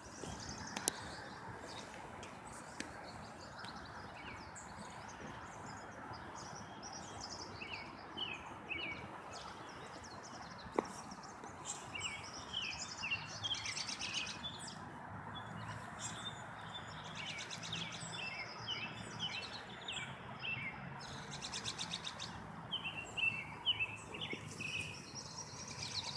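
Several songbirds singing and chirping over a steady background hiss, the calls sparse at first and growing busier from about halfway in. Two sharp clicks stand out, one near the start and one midway.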